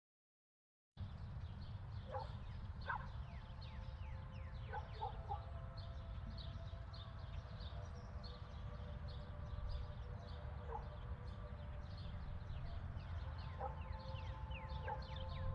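Faint outdoor night ambience that starts about a second in: a steady low rumble, with many quick, high, falling chirps and a few short distant animal calls.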